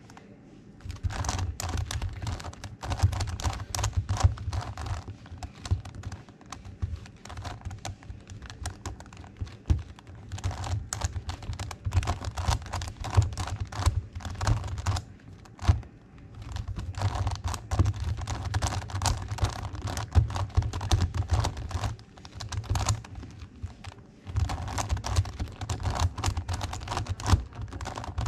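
Plastic megaminx puzzle being turned by hand, a dense run of clicking and clacking in spells of several seconds with short pauses between. The faces are being turned over and over through a move sequence to swap the last out-of-place pieces.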